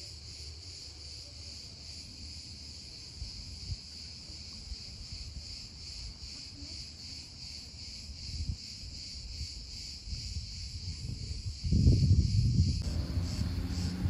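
A chorus of cicadas giving a steady, high, evenly pulsing buzz. Wind buffets the microphone underneath, gusting much harder near the end.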